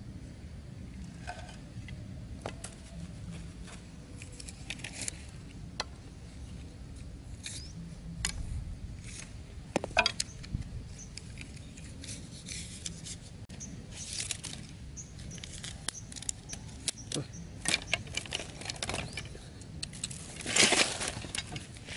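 Scattered light clicks, taps and rustles of thin bamboo sticks and string being handled and fitted together, with one sharper click about halfway and a louder scraping rustle near the end.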